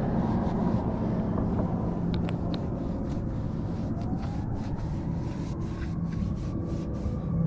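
A vehicle engine running steadily with a low hum, a faint higher tone rising slowly in pitch through the second half.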